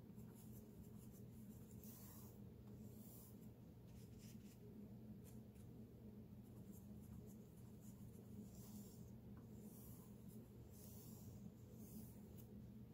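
Faint scratchy strokes of a wide flat paintbrush working acrylic paint, first mixing on the palette and later brushing across paper, over a low steady room hum.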